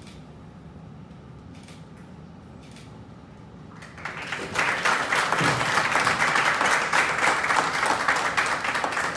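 Quiet room tone, then an audience breaks into applause about four seconds in, many hands clapping steadily.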